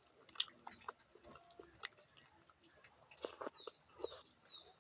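Faint mouth clicks and smacks of someone eating. From about three and a half seconds in, a bird gives short high chirps, about three a second.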